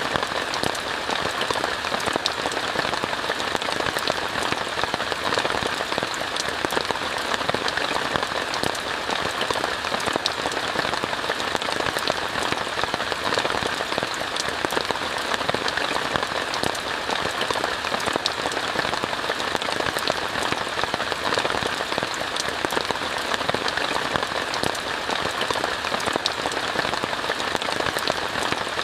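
Steady rain falling on a tent, heard from inside, with many individual drops as fine ticks over an even hiss.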